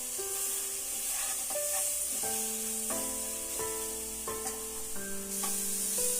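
Masala frying in oil in a kadai, with a steady sizzle and occasional short scrapes as it is stirred. A background melody of held notes plays over it.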